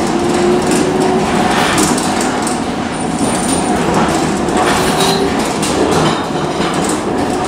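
Tram running along its tracks, heard from inside the passenger car: a steady rumble of wheels on rail with a faint hum and a few scattered knocks.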